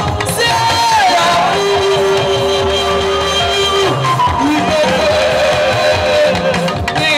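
Live gospel praise music: a band with electric guitar and drums under a lead singer, with one long held note about one and a half seconds in that lasts about two seconds.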